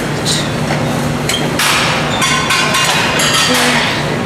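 Metal gym weights clanking, several sharp knocks and clinks at uneven intervals over the steady hum of a gym.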